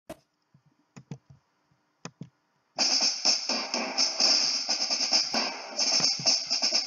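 Intro music: a few separate drum hits, then, nearly three seconds in, the full band with drum kit comes in loud and keeps going.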